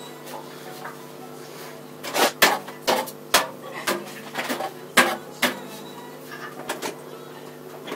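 Sharp clicks and knocks of parts and tools being handled while working under a motorcycle's fuel tank, a cluster of about a dozen from about two to five and a half seconds in, over a steady hum.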